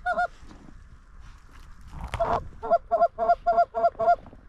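Goose honks: two quick honks, a longer one about two seconds in, then a rapid run of six short clucking honks at about four a second.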